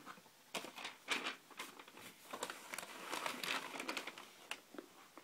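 Crinkling and rustling of wrapping as a sneaker is handled and taken out, in a series of irregular crackles.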